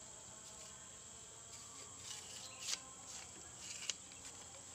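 Insects buzzing in a steady high drone, with a few short sharp clicks in the middle, the sharpest about two and a half and four seconds in.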